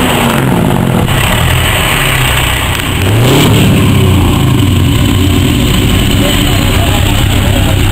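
Heavy diesel truck engine under hard acceleration, its pitch climbing. A brief dip in loudness comes just before the three-second mark, then it climbs again, like a gear change.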